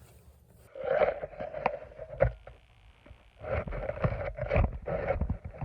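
Close handling and rustling noise, fabric shuffling with sharp little knocks, in two bursts, as the camper shifts about settling in for the night.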